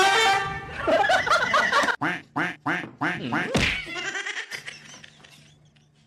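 A rapid run of duck-like quacking calls, loud and repeating several times a second, fading out after about three and a half seconds.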